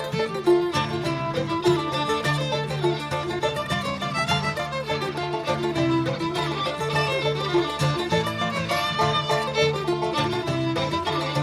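Bluegrass string band playing: fiddle carrying the melody over strummed guitar, banjo and mandolin at a steady rhythm.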